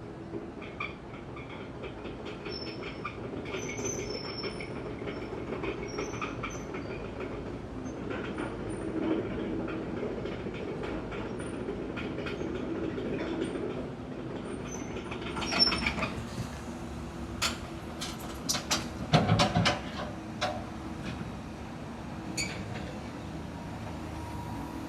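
Caterpillar 314E CR tracked excavator at work: its CAT C4.4 diesel engine running steadily under a mix of metallic clicks, squeaks and clanks from the machine. A run of louder knocks comes about 15 to 20 seconds in.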